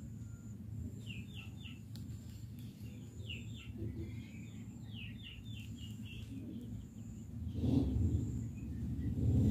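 Birds chirping in short runs of quick falling notes, three or four at a time, over a steady low background rumble. The low rumble grows louder near the end.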